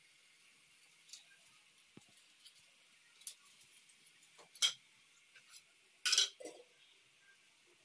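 A few sharp clicks and clinks over a faint steady hiss. The loudest come about four and a half seconds in and again just after six seconds, where there is a short cluster.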